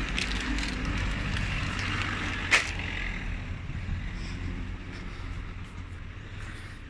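Plastic rubbish bags rustling as they are handled in a bin, over a low steady rumble, with one sharp knock about two and a half seconds in.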